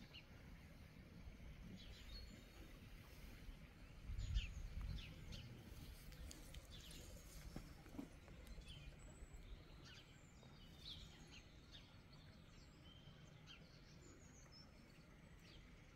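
Faint, scattered birdsong chirps over quiet outdoor background noise, with a brief low rumble about four seconds in.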